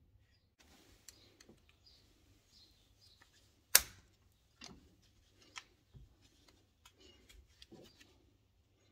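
Scattered small clicks and taps of hand work at a brake caliper as a screwdriver prises the brake-pad wear sensor connector loose, with one sharp, much louder click just before four seconds in.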